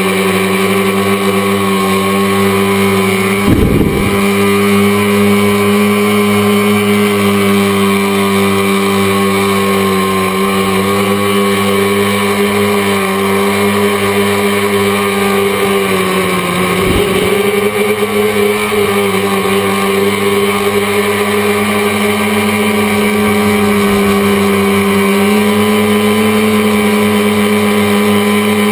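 Tricopter's motors and propellers buzzing steadily, heard close up from the aircraft itself, the pitch wavering a little with the throttle. A short low thump comes about three and a half seconds in, and the pitch dips briefly around the middle.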